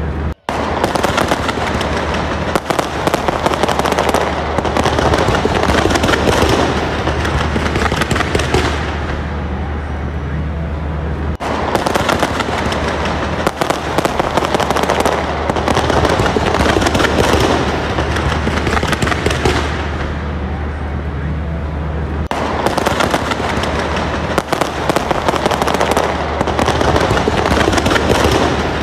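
Fireworks display going off in dense, rapid volleys of bangs and crackles, a near-continuous barrage.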